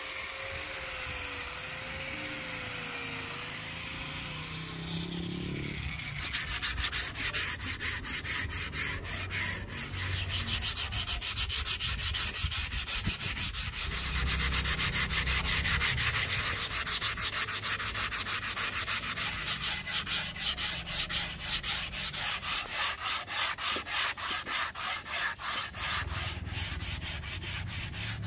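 A round-pad electric sander runs on a curly padauk axe handle, its motor whine winding down about five seconds in. Then comes hand-sanding with sandpaper on a small pad: steady back-and-forth rubbing strokes, about two a second, along the wooden handle.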